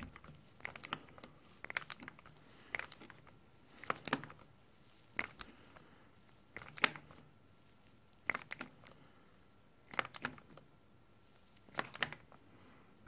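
Ratcheting torque wrench turning a spark plug down in short strokes: a quick burst of ratchet clicks on each return swing, about every second or two, as the plug's crush washer is tightened toward its 20 Nm torque.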